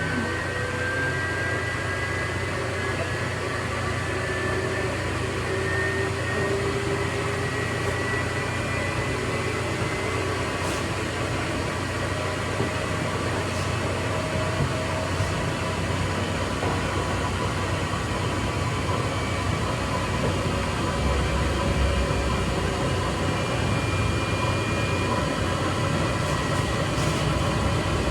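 Extra-large coin-operated washing machine running: a steady mechanical hum with a thin whine that rises slowly in pitch over the first ten seconds or so.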